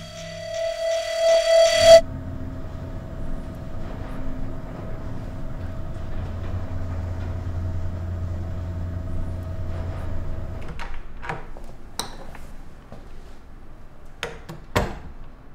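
A sustained musical tone cuts off suddenly about two seconds in. A steady low rumble of a moving elevator cab follows and stops after about eight seconds, then a few sharp knocks and clicks come near the end.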